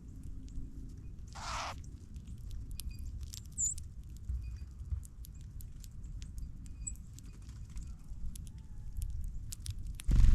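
Small birds pecking at seed close to the microphone: scattered quick taps and clicks over a low rumble. A short rush of noise comes about 1.5 s in, a brief high chirp a couple of seconds later, and a loud low thump near the end.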